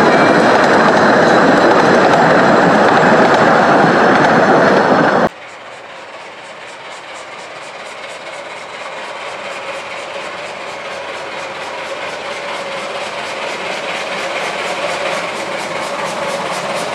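Carriages of a 15-inch gauge train rolling past close by, their wheels clattering on the rails, until the sound cuts off abruptly about five seconds in. Then a steam locomotive is heard approaching along the line, its regular exhaust beats growing steadily louder.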